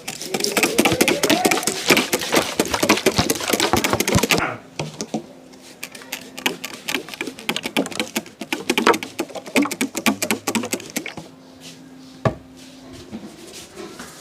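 Rapid percussive hand-tapping strokes of a barber's head massage, a fast dense run of sharp taps for about four and a half seconds, then slower, sparser taps.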